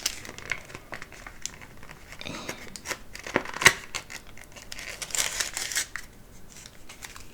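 Packaging being handled: crinkling and rustling of wrapping, with scattered light clicks and taps, the sharpest about three and a half seconds in and a longer rustle a little after five seconds.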